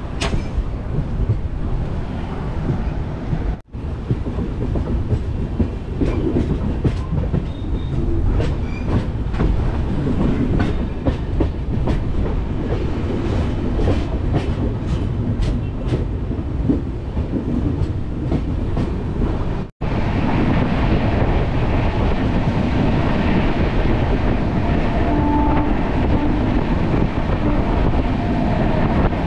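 Uday Express passenger train running at speed, heard from on board: a steady rumble of wheels on the rails with scattered clicks from the track. The sound breaks off abruptly twice, and after the second break the running noise is louder and hissier.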